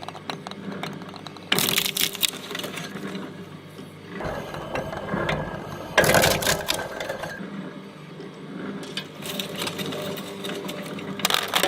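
Shredder running and chewing through Play-Doh in spells of dense crackling, the first about a second and a half in, another around six seconds in, and a third near the end, with a low motor rumble under the middle one.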